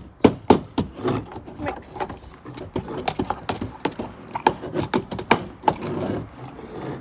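Metal spoons clinking and scraping against small tin pails as slime is stirred: a rapid, irregular run of sharp clicks and knocks.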